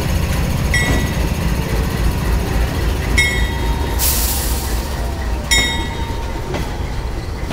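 GE AC4400CW diesel locomotive rolling slowly past with a steady low engine rumble. Sharp metallic clicks with a ringing tail come about every two and a half seconds as the wheels cross the track. A burst of hiss sounds about four seconds in.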